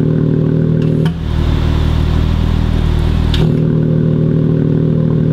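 2019 Porsche Cayenne's turbocharged V6 idling through a QuickSilver exhaust while its Bluetooth-actuated valve is switched from a phone. About a second in, the exhaust note changes abruptly to a lower, duller drone, then snaps back to the brighter note about two seconds later, with a brief click at each change.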